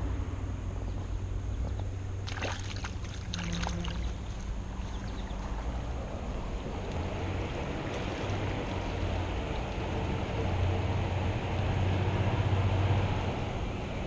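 Steady rush of flowing creek water with a low rumble of wind on the microphone, the rush growing louder in the second half. A cluster of light clicks and rustles about two to four seconds in.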